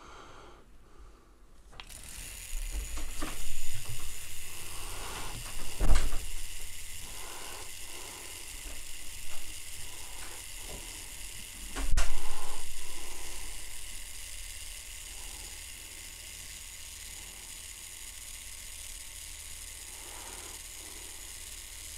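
A handheld three-axis action-camera gimbal, the Hohem iSteady Pro4, switches on about two seconds in, and its motors hold the arm with a steady high hiss. Several clicks and knocks come from handling it, the loudest about twelve seconds in.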